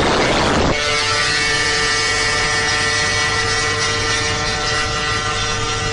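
Wind rushing loudly over a phone microphone held out of a fast-moving car's window, cutting off abruptly under a second in. After that comes the steady drone of the car's engine at high cruising speed, heard inside the cabin.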